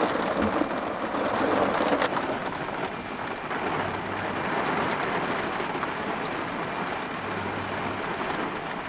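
Rain falling steadily on the motorhome's roof, heard from inside as an even hiss.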